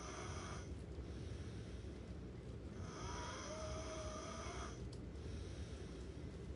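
Snoring in slow, even breaths. One breath ends about half a second in and another lasts about two seconds from about three seconds in, each with a faint wavering whistle.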